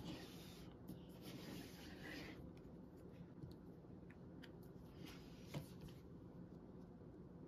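Faint rustle of a cutting mat and paper sheet being slid and turned on a desktop, starting with a light click, with one more light tap later on.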